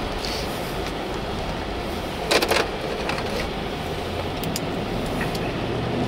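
Steady road and engine noise inside a moving car's cabin, with a brief clatter of sharp clicks about two and a half seconds in.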